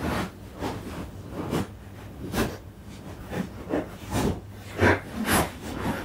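Cardboard box being opened: packing tape slit with scissors and the flaps pulled open, a string of short scraping and rustling strokes at an uneven pace.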